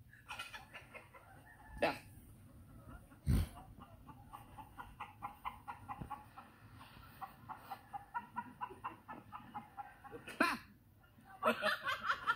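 Chickens clucking, a run of short rapid calls, with a couple of sharp knocks early on.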